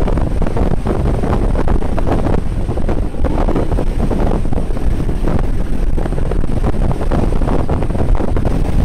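Wind buffeting a phone's microphone on a bicycle riding fast downhill, a loud, steady rumble.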